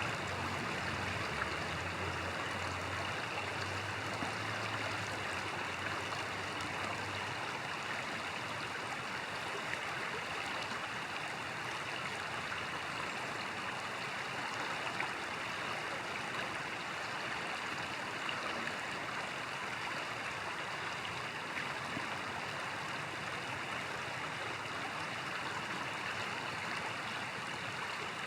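Steady rush of a flowing stream or river.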